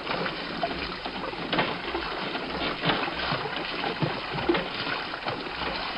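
Water splashing and pouring from the pots of an ox-driven Persian water wheel, a steady rush with scattered short knocks.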